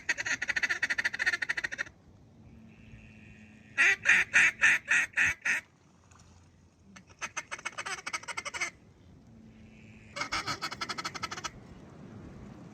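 Mallard duck call blown in hen calls: fast chattering runs, with a series of about seven loud, evenly spaced quacks in the middle.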